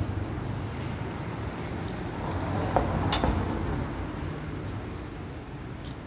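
City street traffic noise: a low rumble of passing vehicles, with a single sharp click about halfway through.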